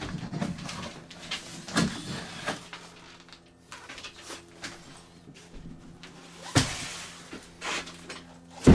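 A heavy cardboard box of vinyl plank flooring being handled: scattered knocks and rustles as it is carried, then a loud thump near the end as it is set down on the wooden subfloor.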